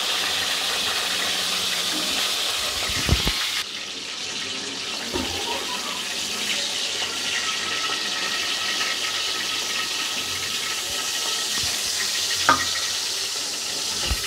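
Chicken pieces sizzling steadily in hot oil in a wok, with a few knocks of a wooden spatula against the pan as pieces are lifted out. The sizzle drops a little about three and a half seconds in.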